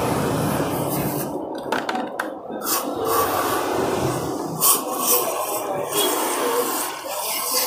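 Aerosol carburettor cleaner sprayed through its straw onto a scooter's throttle body, hissing and spattering on the metal in several squirts with short breaks between them.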